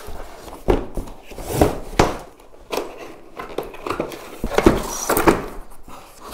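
Cardboard packaging scraping and rustling as a long aluminium saw guide rail is slid out of its box, with several irregular knocks and thunks of the rail against the cardboard.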